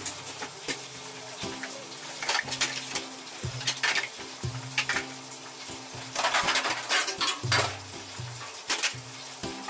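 Stainless steel gastronorm trays being handled on a steel worktop: scattered metallic knocks and clatter, busiest about six to seven seconds in.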